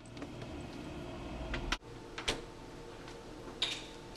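Refrigerator door and items being handled: a few light knocks and clicks, one about two seconds in and another near the end, over a low room hum that drops away partway through.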